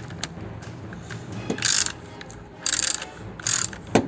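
Ratchet wrench clicking in short bursts, about three back-swings and a sharp click near the end, as bolts are turned to jack the fuel rail up off the intake manifold.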